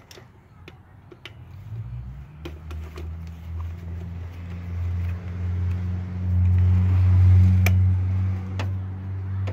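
A low steady engine hum, as of a vehicle running nearby, building up about two seconds in, loudest past the middle and easing near the end, with scattered light clicks and taps of parts being handled.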